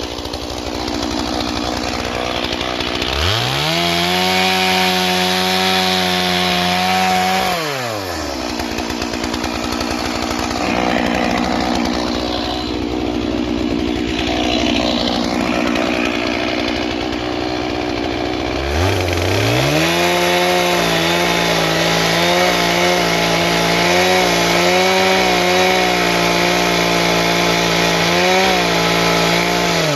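Stihl MS 461 two-stroke chainsaw ticking over low, then revving up to full throttle about three seconds in and dropping back after a few seconds. A little past halfway it opens up to full throttle again, its pitch wavering as it cuts through a log, and it drops back just at the end.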